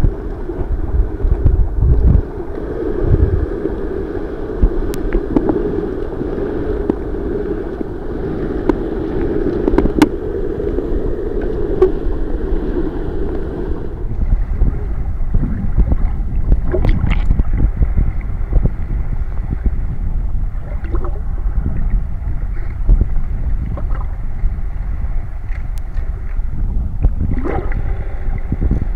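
Muffled underwater rumble and water noise picked up by a camera held just below the surface, with a steady hum in the first half that changes abruptly about halfway through. Scattered knocks and splashes from swimmers' fins and bubbles come through in the second half.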